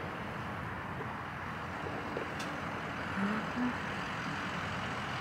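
Steady road noise from a vehicle, an even rushing hiss.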